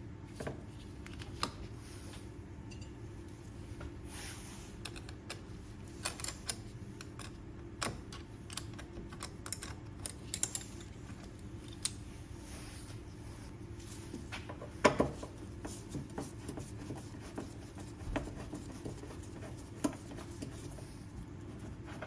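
Scattered light clicks and taps, with one louder knock about two thirds of the way through, over a steady low hum.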